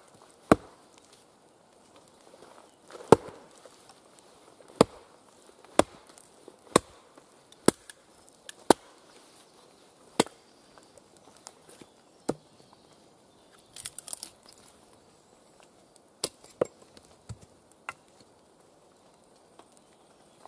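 A small axe chopping and splitting firewood on a wooden chopping block: about a dozen sharp blows, roughly one a second at first, then more spaced out, with a brief crackling clatter about two-thirds of the way through.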